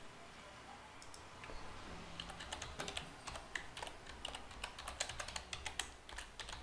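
Typing on a computer keyboard: quick, irregular key clicks, sparse at first and coming thick and fast from about two seconds in.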